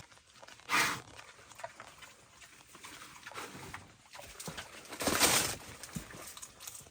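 Wild boar making harsh, noisy calls: a short loud one under a second in and a longer one around five seconds in, with softer grunts between.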